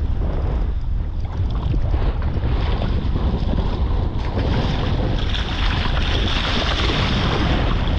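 Steady wind buffeting the microphone, with a hiss of moving water over it that grows louder about halfway through.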